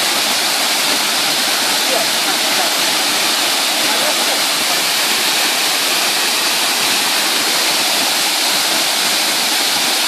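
Khoiyachora waterfall pouring down a rock face, a loud, steady, even rush of falling water.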